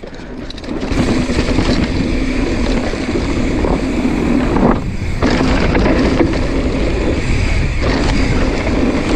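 Wind rushing over the action camera's microphone, with mountain-bike tyres rolling over dirt, during a downhill run. It builds over the first second as the bike picks up speed, with a brief lull about five seconds in.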